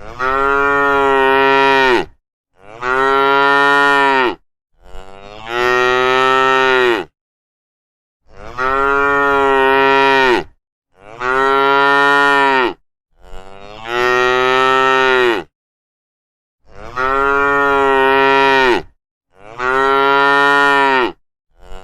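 Cattle mooing: a run of eight long, evenly paced moos of about two seconds each, with short silent gaps between them.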